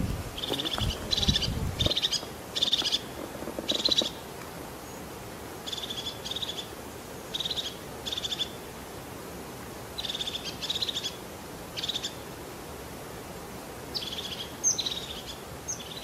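A bird calling in short, rattling, high-pitched notes in twos and threes, repeated every second or two over a steady background hiss. Low wind rumble on the microphone in the first two seconds.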